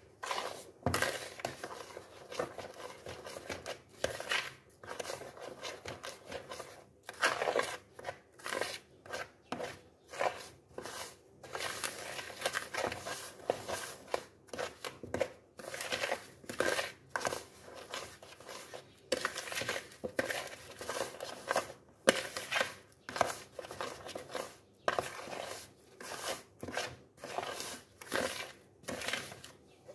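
Hand mixing flour and egg in a plastic bowl: repeated rubbing and scraping strokes, about one or two a second.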